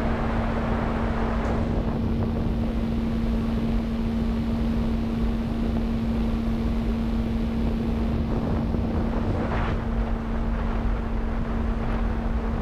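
Skyhunter RC plane's brushless motor and propeller droning at a steady pitch in cruise, heard from the onboard camera, with wind rushing over the microphone that swells in short gusts about a second and a half in and again near ten seconds.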